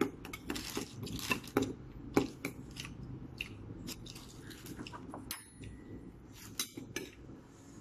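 Spoons and forks clinking and scraping against plates, with chewing, as a meal is eaten; irregular small clicks throughout.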